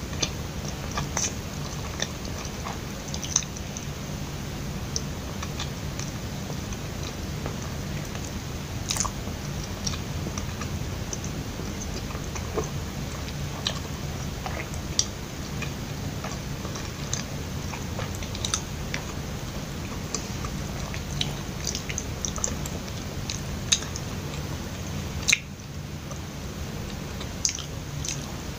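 Close-miked chewing of a soft, sticky glutinous rice cake (loh mai chee, mochi skin with ground nuts and sugar): wet mouth clicks and smacks scattered throughout, over a steady low hum.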